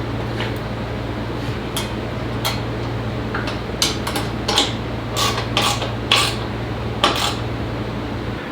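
Short metallic clinks, clicks and knocks of hardware and hand tools as a plasma CNC table's frame is assembled, coming irregularly every half second or so over a steady low hum.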